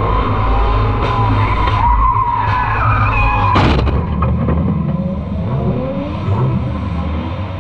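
BMW E46 drift car's engine running hard with tyres skidding. About three and a half seconds in there is a sharp crack as the car takes a knock and a piece of bodywork breaks off, and after that the engine noise drops away.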